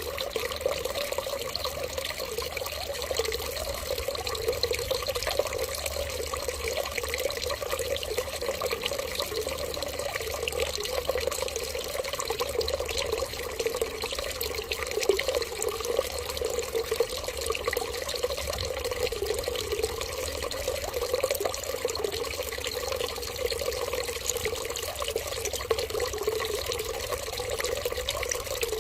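Steady stream of running water trickling, unbroken and even throughout.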